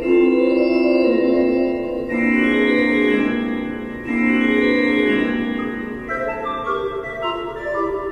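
Organ music: full held chords that change about every two seconds, giving way about six seconds in to a run of shorter, quicker notes.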